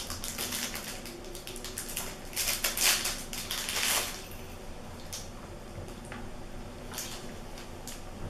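Plastic lollipop wrappers crinkling as they are picked open and peeled off by hand, in several bursts of crackling that are loudest about halfway through.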